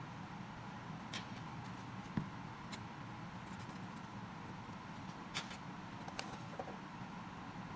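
Faint steady hiss with a handful of light, sharp clicks and taps, the loudest about two seconds in.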